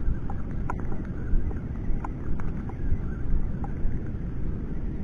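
Steady low rumbling noise of wind and water on the microphone while fishing from a small craft on a lake. A few faint, brief, high-pitched chirps come at irregular moments.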